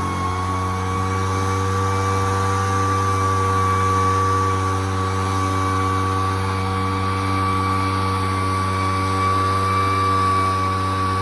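Poulan Pro backpack leaf blower's two-stroke engine running steadily at speed, with a high, steady whine over the engine note.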